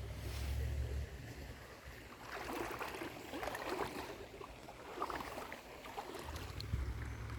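Creek water splashing and sloshing in irregular bursts, with a low rumble on the microphone at the start and near the end.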